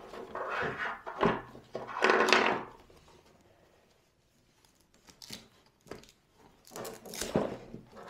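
Hook-and-loop (velcro) strip of a Lumicast flash reflector being ripped and pressed back on: several rasping rips in the first few seconds, the loudest about two seconds in, then a few light handling knocks.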